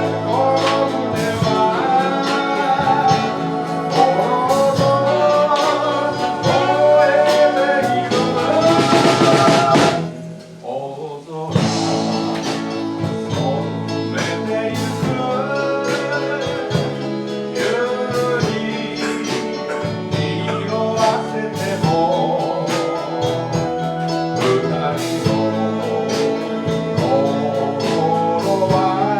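Live band music: a singer with vibrato over guitar and drums, dropping away briefly about ten seconds in before the band comes back in.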